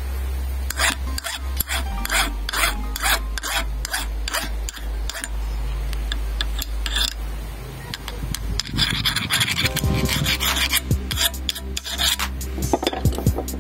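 Hand file scraping the steel of a Minsk motorcycle's front fork leg, in repeated strokes about two a second that come faster after the middle. Background music plays under it.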